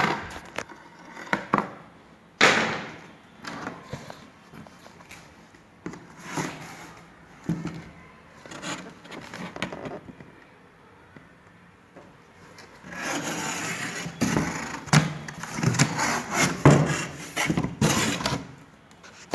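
A cardboard printer box and its packing being opened and handled: irregular scrapes, knocks and clicks, with a busier stretch of scraping and rustling in the last few seconds.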